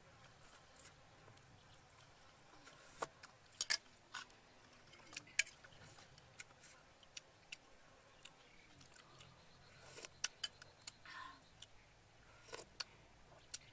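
Metal spoon clinking and scraping against a ceramic soup bowl: a scattering of short, sharp clicks, bunched around a few seconds in and again near the end, with quiet eating sounds between.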